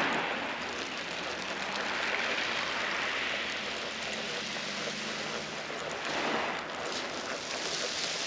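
Multiplier fishing reel being wound in steadily, its gears giving a faint low whirr, as it retrieves a rig with a small fish on. Behind it is the hiss of surf on a shingle beach.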